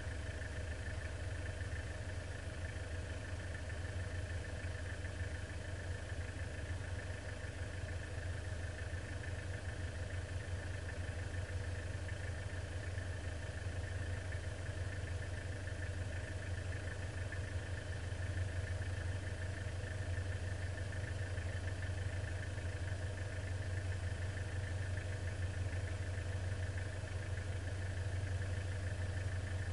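A four-wheel-drive's engine idling steadily, heard from inside the stationary vehicle: a constant low rumble with a faint steady whine above it.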